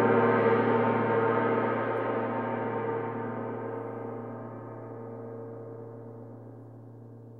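A large metal gong ringing out after a single mallet strike, many tones sounding at once and slowly fading; the higher tones die away first while a low tone lingers.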